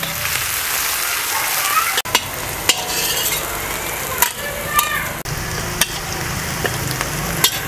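Onion, green chillies, garlic and whole spices sizzling in hot oil in a large kadhai as they are stirred. A steady hiss carries on throughout, with a scrape or click against the pan about once a second.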